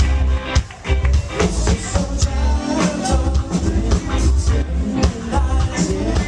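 Live rock band playing an upbeat song through the PA, with a steady beat on drum kit and bass guitar.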